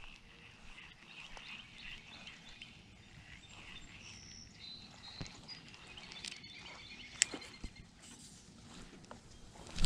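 Quiet outdoor ambience at a pond's edge, with faint bird chirps over a steady high hum, and one sharp click about seven seconds in.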